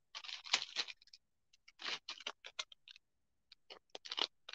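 Clear plastic packaging around a pack of paintbrushes crinkling and clicking as it is picked up and moved. It comes as a run of short, irregular rustles and clicks.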